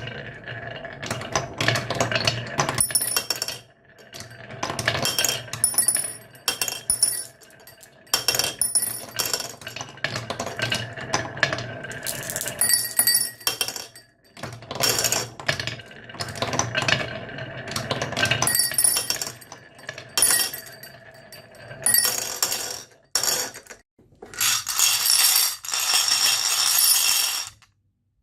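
Marbles rolling and clattering down a toy marble run, clinking against the track and each other in irregular bursts, with a dense stretch of rattling near the end.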